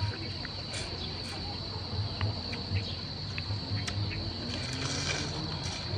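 Insects droning in a steady high-pitched tone, with scattered short clicks and crunches as a cooked river prawn's shell is bitten and chewed.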